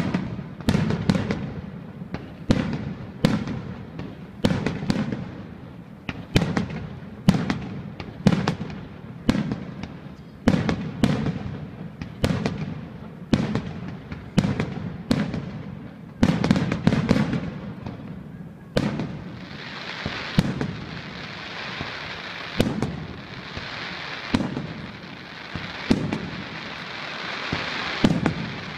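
Fireworks display: aerial shells bursting in quick succession, about one or two sharp bangs a second, each followed by a rumbling echo. About two-thirds of the way through, a steady hiss fills in under fewer, scattered bangs.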